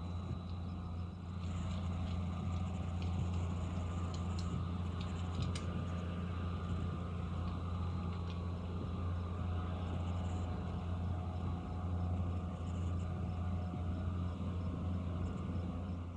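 Steady drone of a motor vehicle running at an even pace, with a few light ticks or rattles about four to six seconds in.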